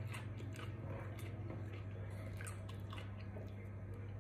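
Close mouth sounds of someone chewing pizza: scattered short wet clicks and smacks of lips and tongue, over a steady low hum.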